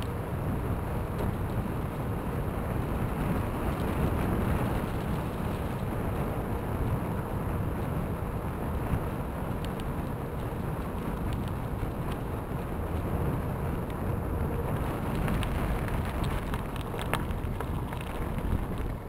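A bicycle rolling along a crushed-stone trail strewn with fallen leaves: a steady low rush of wind buffeting the microphone, over the crackle of tyres on gravel and leaves, with scattered light clicks in the second half.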